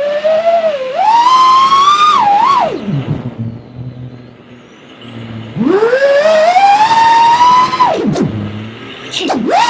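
FPV quadcopter's brushless motors whining and changing pitch with the throttle. The pitch rises steeply about a second in and again around six seconds, falls to a low hum between about three and five seconds, and dips sharply again near the end.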